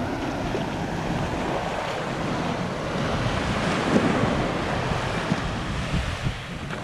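Surf breaking and foaming up the shore of a sand beach, with wind buffeting the microphone.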